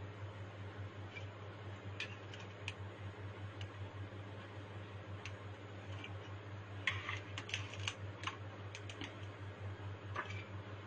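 Light scattered clicks and taps of a utensil against a baking tray and serving plate as syrup-soaked galash pieces are moved, with a quick run of clicks about seven to eight seconds in, over a low steady hum.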